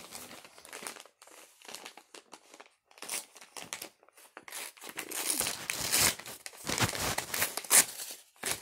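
DVD packaging being torn and crumpled by hand: irregular crinkling and ripping noises, loudest in the second half.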